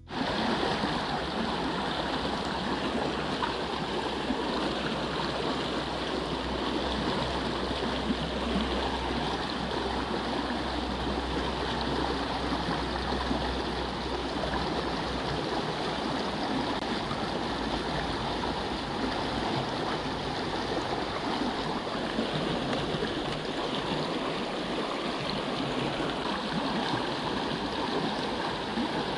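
Steady flowing water of a small river running past the angler's spot, an even rushing sound that holds unchanged throughout.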